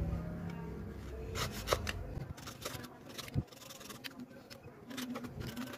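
Utility knife blade cutting and scraping a small piece of soft wood, making a string of short scrapes and clicks.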